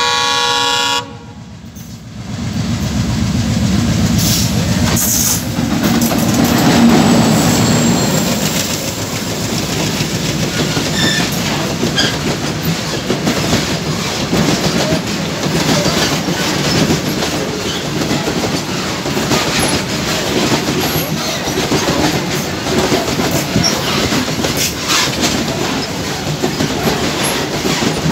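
A locomotive horn sounds for about the first second and cuts off suddenly. A heavily loaded freight train's wagons then rumble and clatter past at close range, with the wheels clicking and banging over the rail joints.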